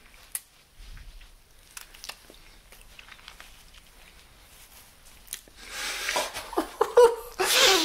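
Soft wet mouth clicks and lip smacks as peanut butter is licked off a finger and tasted. From about five and a half seconds in, a man's breathy, drawn-out vocal sounds of pleasure, louder and gasping near the end.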